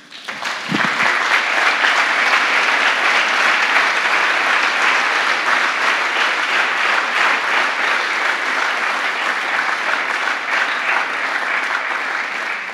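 A large audience applauding with steady clapping that begins just after the start and starts to fade near the end.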